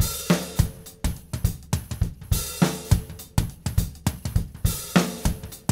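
Drum kit playing a steady groove: kick drum, snare and hi-hat, with a cymbal crash about every two and a half seconds.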